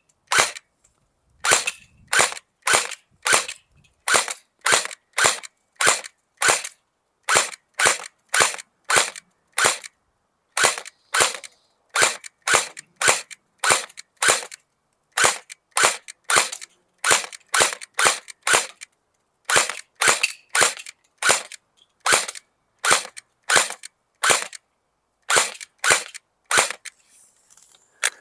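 Electric AK-47 airsoft rifle (AEG) firing single shots on semi-automatic: a long string of sharp cracks, about one to two a second, with brief pauses between groups.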